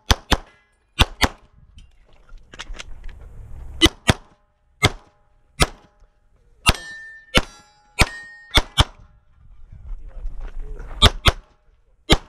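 Glock 17 9mm pistol fired in fast strings, mostly pairs of shots about a quarter second apart, during a USPSA stage run. Around the middle, two shots are each followed by a brief metallic ring, typical of a hit on a steel target.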